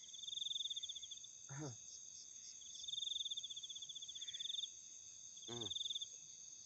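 Night insects: crickets trilling in high pulsed bouts that start and stop, over a steady higher insect drone. Twice, about a second and a half in and again near the end, a short sound falls steeply in pitch.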